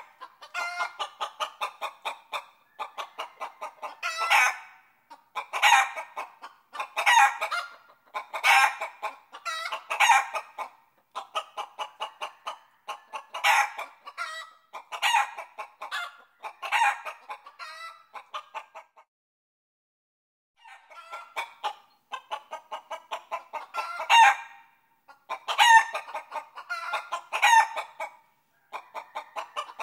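Chickens clucking in repeated bursts of rapid pulses, with a pause of about two seconds roughly two-thirds of the way in.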